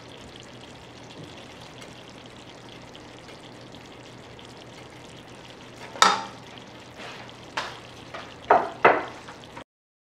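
Beef bulgogi in sauce sizzling faintly in a hot pan after the heat is turned off, then, about six seconds in, a metal utensil knocks and scrapes against the pan four or five times as the meat is stirred, the first knock the loudest. The sound cuts off abruptly near the end.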